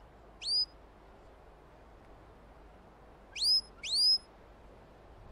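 A sheepdog handler whistling commands to his working dog as it moves the sheep: three short whistles that each rise in pitch. The first comes about half a second in, and the other two follow in quick succession past the three-second mark.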